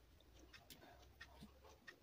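Near silence with a few faint clicks of someone eating kheer from a metal spoon: soft mouth sounds and spoon contact.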